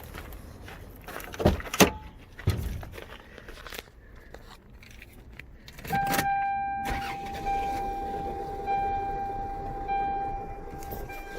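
Keys jangling and a few clicks, then about six seconds in the 1996 Toyota RAV4's four-cylinder engine starts and runs, with a steady high-pitched tone over it. The engine has a misfire on cylinder number four (code P0304).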